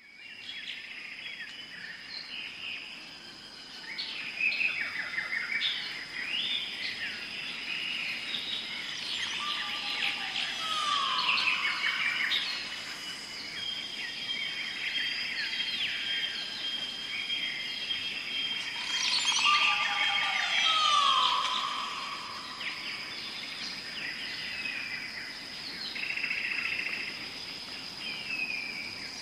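A colony of weaver birds chattering and calling, many overlapping buzzy, scratchy notes, with a steady high tone underneath. Twice a lower call slides downward.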